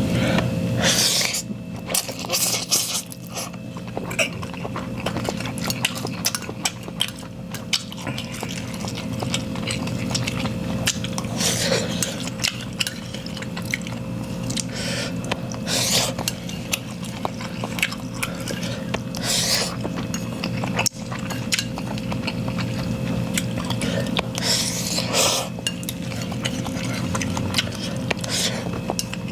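Instant ramen noodles being slurped in about five drawn-out slurps, with the eating utensil clicking and clinking against the ramen container between them.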